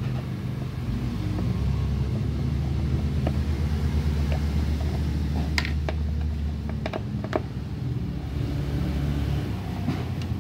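A steady low mechanical rumble, with a few sharp clicks of hand work on a scooter's air-filter housing about midway through.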